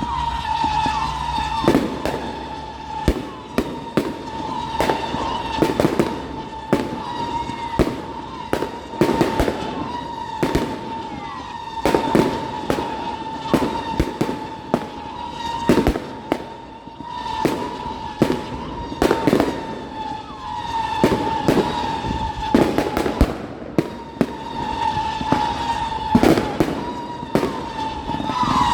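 Fireworks display: a dense, irregular run of sharp bangs from bursting shells, several a second at times. Under the bangs runs a steady high whistling tone that is almost unbroken.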